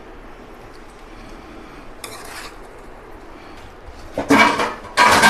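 Glass serving plate scraping and clattering on a granite countertop as it is picked up: two loud scrapes about four and five seconds in, after a brief softer noise about two seconds in.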